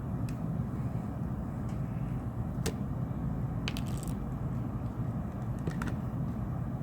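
A few small, sharp plastic clicks and cracks as picks work around the edge of a smartphone's glued back cover and its clips give, over a steady low hum.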